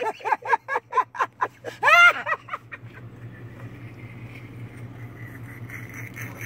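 A rapid string of short, high-pitched vocal sounds for the first second and a half, and a single rising-then-falling wail about two seconds in. After that comes the low, steady hum of a vehicle idling.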